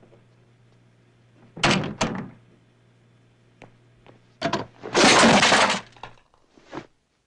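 Foley sound effects for an action scene performed live with props: a couple of sharp hits about one and a half seconds in, a few more about four and a half seconds in, then a loud crash lasting nearly a second, and one last hit near the end.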